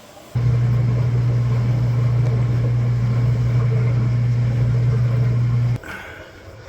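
Electrolux front-load washer's pump motor running during a rinse/spin test: a loud, steady low hum that starts about half a second in and cuts off about a second before the end.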